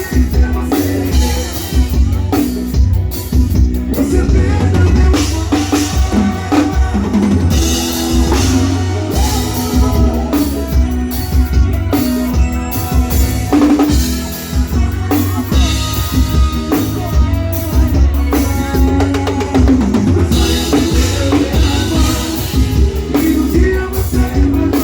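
Live forró band playing, heard from the stage with the drum kit up front: steady kick drum, snare and rimshots over bass and other pitched instruments, with no singing.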